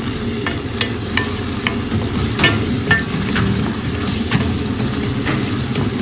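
Chopped onion frying and sizzling in oil in a stainless steel pan, with scattered clicks as it is stirred.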